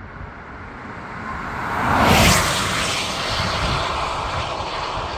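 Volkswagen ID.7 electric car driving past on winter tyres: tyre and wind noise swells to a peak about two seconds in and drops in pitch as the car goes by, then settles into a steady rush.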